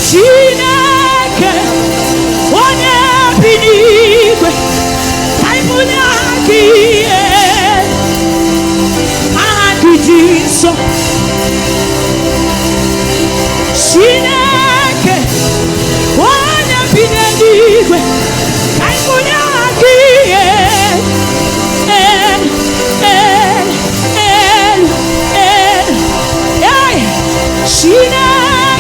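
Live gospel worship music: a woman singing with strong vibrato over sustained instrumental accompaniment.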